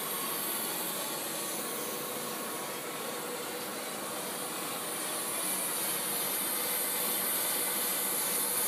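Steady hiss of Axxair orbital TIG tube-to-tubesheet welding heads running on a heat-exchanger tubesheet, with a faint steady tone under it.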